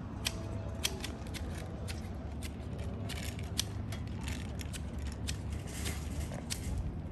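Hand shears snipping at the branches of a clipped conifer: a quick, irregular series of sharp clicks, about two a second, over a steady low rumble.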